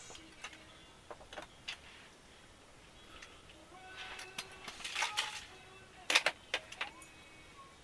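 Tackle being handled in a hard plastic tackle case: scattered clicks, knocks and rattles of small plastic boxes and lures, with bag crinkling. A busier patch about four to five seconds in, and the loudest clicks a little after six seconds.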